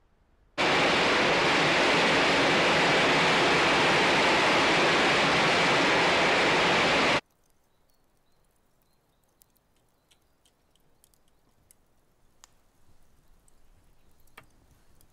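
A loud, steady hiss of noise that switches on abruptly and cuts off just as abruptly after about six and a half seconds. Faint, scattered crackles follow.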